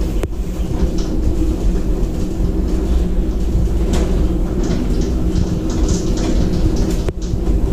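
Steady low rumble and hum inside a Ngong Ping 360 gondola cabin as it travels along the cable.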